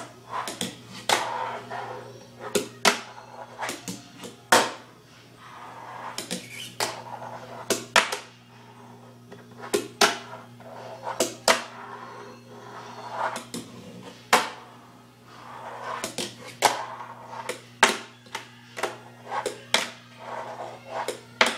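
A fingerboard working a desktop: sharp, irregular clacks as the tiny board's deck and wheels pop and land, with stretches of the wheels rolling between them. A steady low hum runs underneath.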